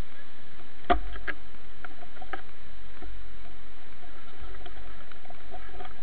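Steady rushing of water from a waterfall or stream. A sharp knock with a low thump comes about a second in, followed by a few fainter clicks.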